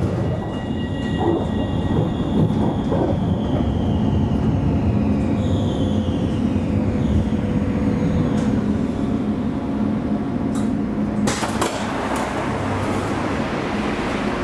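Alstom Citadis tram running on its rails, heard from inside the cab: a steady rumble with faint whines gliding down in pitch as the tram slows. A sudden sharp noise about eleven seconds in, followed by a louder hiss.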